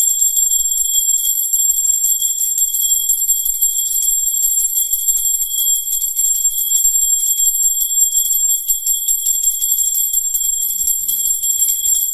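Small brass puja hand bell rung continuously during worship, a steady, high, bright ringing that doesn't let up.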